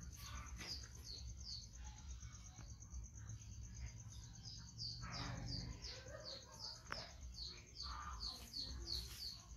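A small bird chirping over and over in short, falling chirps, about two or three a second, more steadily in the second half. A faint, steady high-pitched whine runs underneath.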